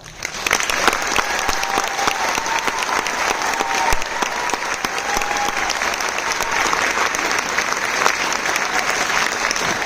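Concert audience applauding, breaking out suddenly as a choir song ends and keeping up steadily, with a few cheers mixed in.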